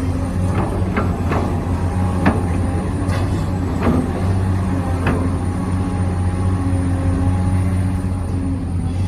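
Radio-controlled model construction machine running with a steady low electric drone, with sharp clicks and knocks at irregular intervals, mostly in the first five seconds.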